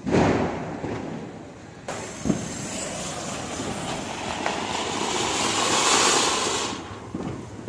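A Diwali firework burning with a hiss as it throws out sparks. It opens with a sudden burst, gives a sharp pop about two seconds in, then the hiss grows louder and cuts off near the end.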